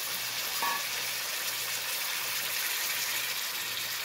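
Raw catfish pieces and curry masala sizzling in hot oil in a pot: a steady, even hiss.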